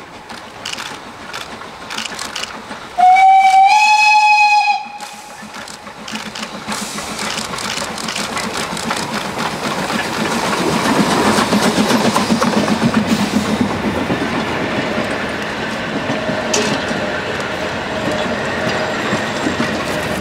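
Metre-gauge steam tank locomotive 99 6001 approaches and passes with its exhaust chuffing. It gives one loud steam whistle blast about three seconds in that rises slightly in pitch at the start and lasts nearly two seconds. The engine is loudest around the middle as it goes by, followed by its coaches and a timber wagon rolling past with a clickety-clack over the rails.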